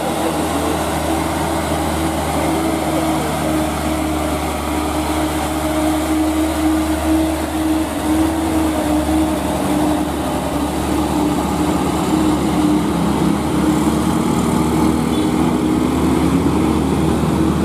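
Diesel engine of a loaded light dump truck running steadily under load, a continuous engine drone with no break.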